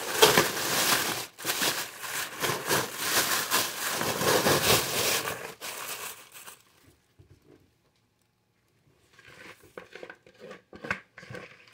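Thin plastic grocery bag crinkling loudly as it is pulled over a bowl of chocolate-coated cereal and turned upside down, for about six seconds. After a short pause, a few softer rustles come as the bowl is lifted out of the bag.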